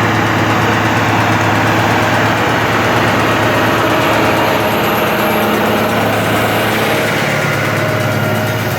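Case IH Puma 215 tractor's six-cylinder turbo-diesel engine running steadily under load while pulling a six-furrow plough. A steady low hum sits under a dense mechanical din.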